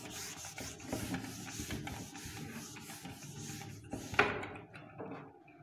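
Duster wiped back and forth across a whiteboard, a rubbing hiss in repeated strokes, stopping about four seconds in with a sharp knock.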